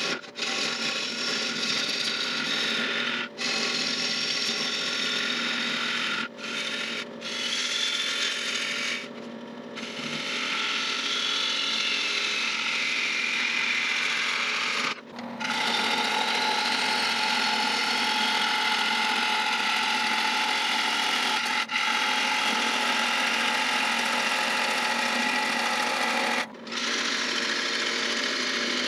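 A gouge cutting the outside of a large wooden vase blank spinning on a lathe: a steady scraping hiss as shavings peel off, broken by about seven brief gaps where the tool lifts off the wood.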